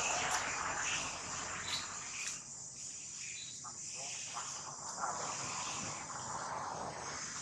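Steady, high-pitched chorus of insects, with a few faint taps or rustles in the first couple of seconds.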